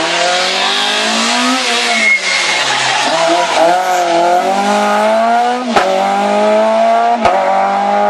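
Small hatchback rally car's engine revving hard as it accelerates through a bend and away. The pitch climbs and falls with the gears, and two upshifts near the end are each marked by a sharp crack.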